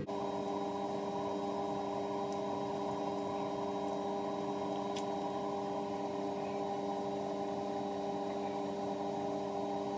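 A steady, unchanging hum of several held tones, starting and stopping abruptly.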